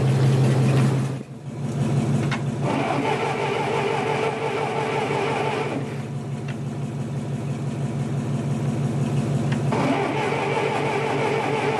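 Cold start attempt on a 1950s Massey Ferguson tractor's petrol engine, its choke wired open: the engine is cranked in two spells of about three seconds each, over a steady engine running underneath.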